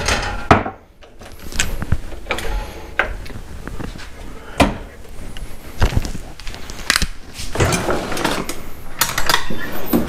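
Kitchen handling: a metal spoon scraping and knocking against a jar and a small saucepan as coconut butter is scooped into the pan, with scattered clinks and knocks and a stretch of scraping about three quarters of the way through.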